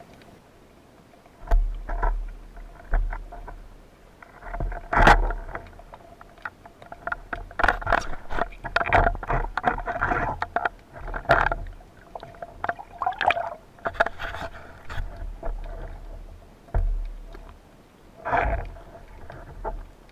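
Underwater camera recording: irregular knocks, scrapes and bursts of rushing water against the camera housing as a freediver moves and handles his speargun and catch. A faint steady tone runs underneath.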